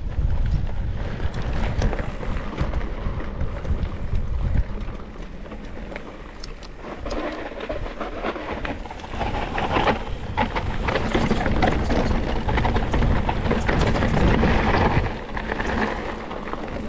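Mountain bike riding a rough dirt cross-country trail, heard from an on-board camera: wind buffets the microphone over tyre noise and many short rattles and knocks. The heavy wind rumble drops about four and a half seconds in, and the rolling and rattling grow louder again later on.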